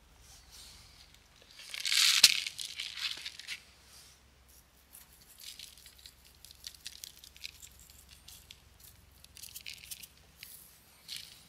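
Seasoning shaken from a spice container onto a raw steak. A loud rattling shake comes about two seconds in, followed by a string of short, light shakes and rattles.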